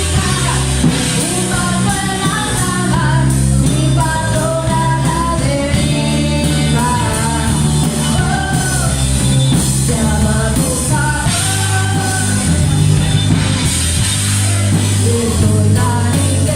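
Rock song with a sung vocal line over electric guitar, bass and a drum kit, playing at a steady loud level.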